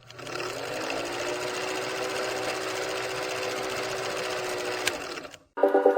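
Homemade drill press driven by a treadmill motor, running: it spins up at the start, runs with a steady whir, then after a click about five seconds in winds down and stops. Music with a pulsing beat comes in near the end.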